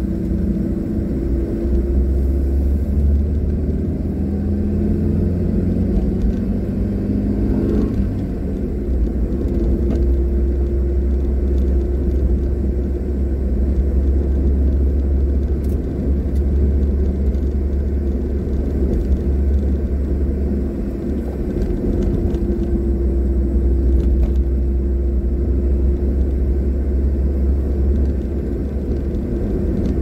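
Car engine and road rumble heard from inside the cabin while driving. The engine note shifts and briefly breaks off about eight seconds in, then runs steadily again.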